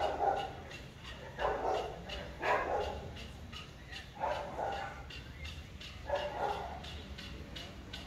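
A dog barking, about five short barks one to two seconds apart, over a faint quick ticking.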